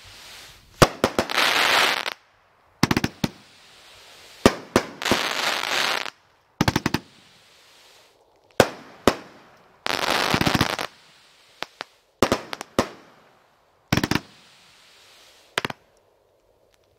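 World Class Fireworks 'Fast Food' firework going off shot after shot: a series of sharp bangs, several of them followed by about a second of dense crackling. The shots stop a little over a second before the end.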